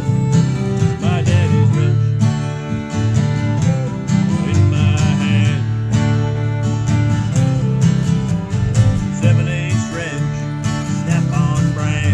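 Several acoustic guitars strummed together in a country-bluegrass jam, with a fiddle playing sliding melody lines over the chords.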